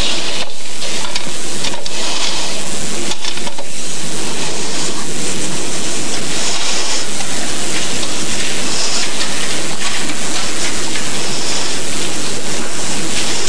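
Steady, loud hiss of noise with no other distinct sound: the background noise of an old, degraded recording.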